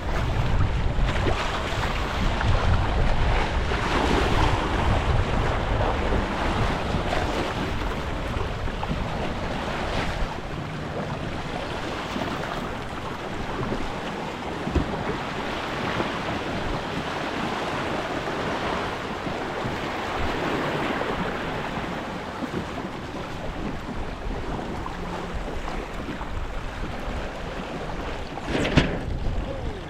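Water rushing and splashing along the hull of a Hobie Tandem Island sailing kayak under way through choppy waves, with wind buffeting the microphone, heaviest over the first several seconds. A louder splash comes near the end.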